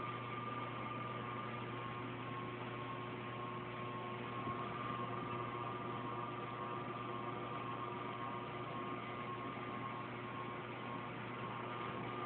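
Steady room hum and hiss with a few constant tones, like a fan or appliance running; no other sound stands out.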